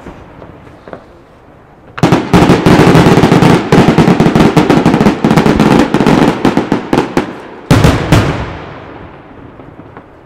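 Aerial fireworks: after a brief lull, a rapid, dense barrage of many bangs starts about two seconds in and runs for about five seconds. Then come two louder single bursts close together, each trailing off in an echo.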